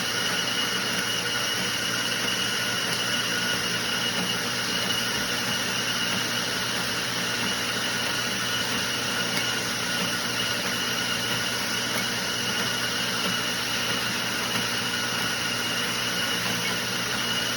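Treadmill running steadily under toy die-cast cars: an even motor whine with a high steady tone over the hiss of the moving belt.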